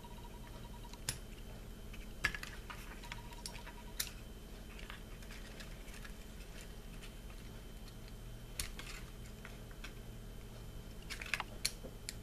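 Scattered small clicks and faint scrapes of a hand tool working on the Syma X8C quadcopter's plastic frame, trimming around the rear LED wire's joint to free it from the flight control board. A faint steady high tone sits behind.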